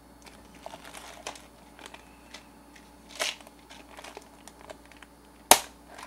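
Small plastic parts being handled: light clicks and the crinkle of a plastic bag of modular RJ11 connectors being rummaged, with one sharp plastic click about five and a half seconds in.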